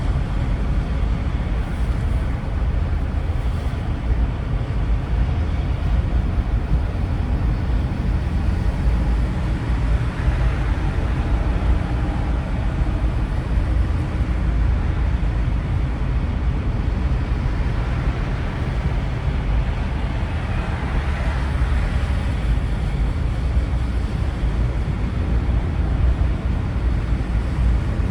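A car driving with a steady low engine and road rumble, and two brief swells of higher hiss about ten and twenty-one seconds in.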